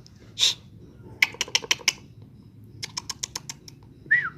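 A short puff of noise, then two quick runs of sharp dry clicks, about seven clicks each, a second apart.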